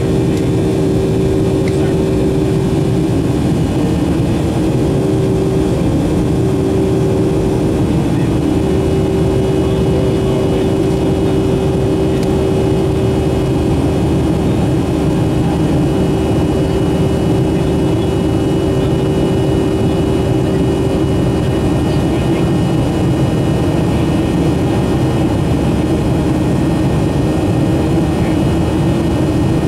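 Boeing 737-300 cabin noise during the climb after takeoff: the CFM56-3 turbofans and the airflow give a steady rumble and rush with a constant droning tone over it.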